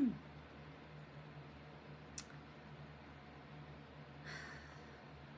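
Quiet room tone with a steady low electrical hum, broken by a single sharp click about two seconds in and a soft, breathy sound a little after four seconds.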